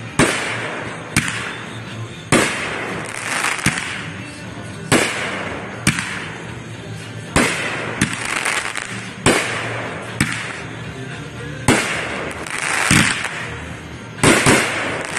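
Aerial fireworks shells bursting in quick succession, about one bang a second. Each bang is followed by about a second of crackling hiss as the glittering gold stars burn out.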